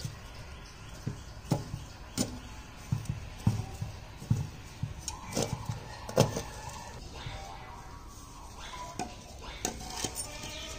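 Metal tongs scraping and clinking against a shallow metal pan as hot ash and embers are heaped over baking baati: irregular knocks about twice a second for the first six seconds, fewer after that.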